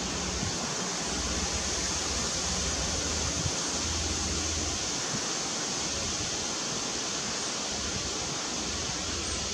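Steady outdoor background hiss, brightest in the high range, with a low wind-like rumble in the first half. No bird calls are heard.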